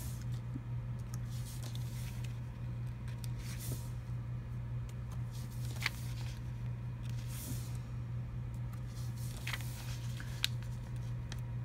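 Sticker sheets being handled: a few short paper rustles and small sharp clicks as stickers are peeled off the sheet, over a steady low hum.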